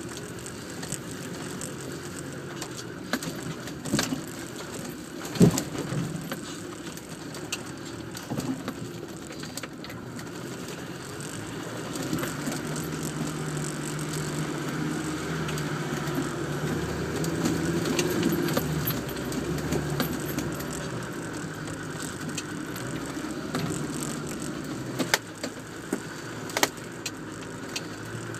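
Land Rover Defender engine running, heard from inside the cab, pulling harder and louder through the middle as it climbs a rutted track. Sharp knocks and rattles from the body and cab as it lurches over rough ground, loudest a few seconds in and near the end.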